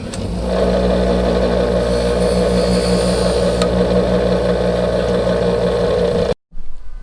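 Farm tractor's diesel engine running steadily with an even drone, then cutting off abruptly near the end.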